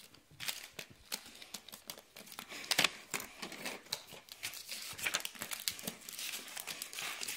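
Sheet of origami paper crinkling and rustling as it is folded and creased by hand, in short irregular crackles.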